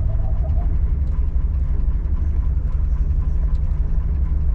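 Toyota FJ40 Land Cruiser engine running steadily at low speed with a deep, even rumble as it crawls a rutted dirt trail. A few faint ticks sound over it.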